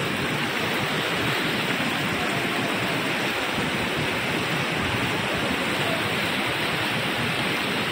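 A rain-swollen mountain stream in spate, its fast water rushing steadily.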